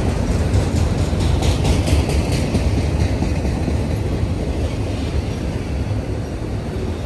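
Enclosed autorack freight cars rolling past: a steady low rumble of steel wheels on rail, with a quick run of wheel clicks about one to three seconds in.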